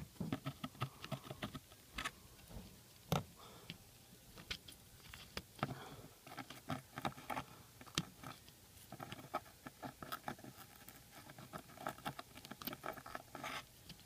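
Desoldering braid and soldering iron tip worked back and forth over the flux-covered dock connector pads of an iPod Touch 4th generation board, lifting off the old solder: a run of small, irregular clicks and scratches.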